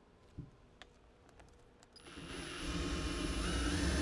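A few faint clicks, then about halfway through a cordless drill starts up. It runs steadily with a whining motor, getting louder as a 1/4-inch bit enlarges a pilot hole in a pickup's lined bed floor.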